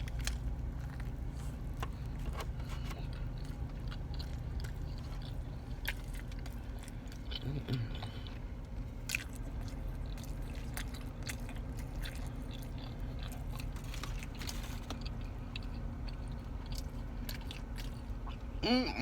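A person chewing and biting into a burger with egg and bacon, close to the microphone, with small wet crunches and clicks over a steady low hum.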